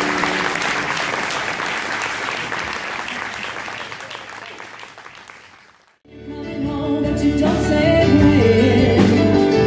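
Audience applause fading out over the first six seconds. After a sudden cut, a country-style acoustic band starts up with a woman singing, with guitars and pedal steel guitar.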